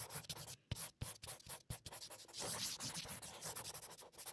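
Black marker pen drawing on paper, its tip squeaking and scratching in short strokes with a few taps, then one longer continuous stroke about two and a half seconds in, followed by more short strokes.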